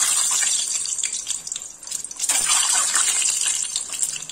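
Hot oil sizzling in a kadhai around whole boiled eggs frying. It dips about two seconds in, then swells again as a second egg goes into the oil.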